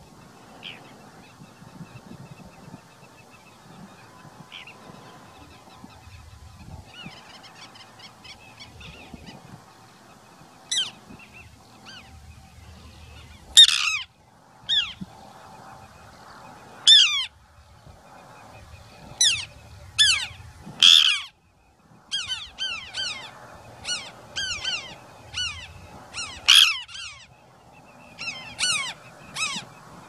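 Birds calling: short, loud calls that slide down in pitch. A few come singly about a third of the way in, then they repeat about once or twice a second through the second half.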